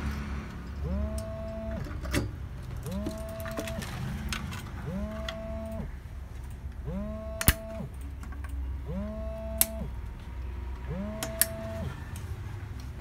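Sharp plastic clicks, four in all, most in the second half and the loudest about halfway through: the push-pins of an Intel stock CPU cooler snapping into the motherboard's mounting holes. Behind them a tone slides up and holds for under a second, repeating about every two seconds over a low hum.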